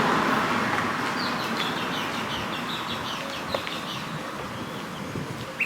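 A bird chirping in a quick run of short high notes for a couple of seconds, over a steady rushing background noise that slowly fades.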